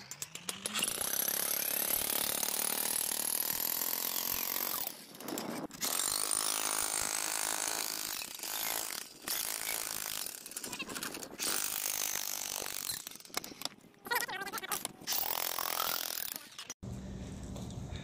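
Electric demolition hammer (jackhammer) chiselling into an old concrete sidewalk slab. It runs in long bursts broken by short pauses and stops abruptly near the end.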